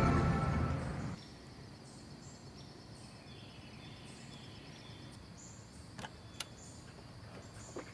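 Music fades out in the first second, leaving quiet woodland ambience with faint, short, high chirps. Two sharp clicks come about six seconds in.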